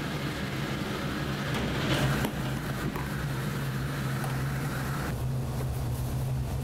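Steady low machine hum of kitchen equipment, with a rushing noise that stops about five seconds in. Light knocks of plastic food containers are heard as they are lifted and set down, the loudest about two seconds in.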